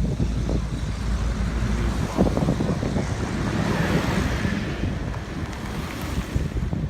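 Wind buffeting the microphone over a steady low rumble, with faint indistinct voices about two to three seconds in.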